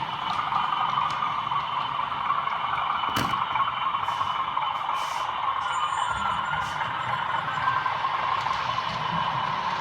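OO gauge model trains running on the layout: a steady whirring hum of motors and wheels on the track, with a sharp click about three seconds in.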